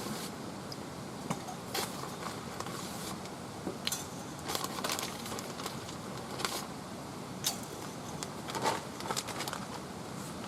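Wood fire burning in a small wood stove: irregular crackles and clicks over a steady hiss.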